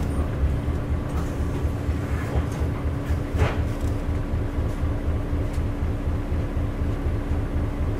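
Isuzu LV bus's 8PE1-N V8 diesel engine running steadily under way, heard from inside the cabin: an even, pulsing low rumble with a constant droning tone over it, and a brief click about three and a half seconds in.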